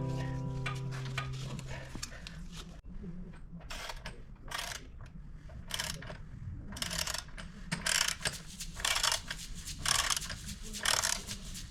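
Background music fades out, followed by a series of short, irregular mechanical bursts of clicking and scraping from hand tools at work on the motorcycle's rear wheel and drive belt.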